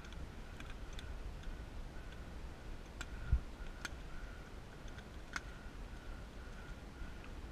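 Paintball markers firing in the distance: four or five sharp, faint pops at irregular intervals. There is a dull thump about three seconds in, and a faint steady high tone underneath.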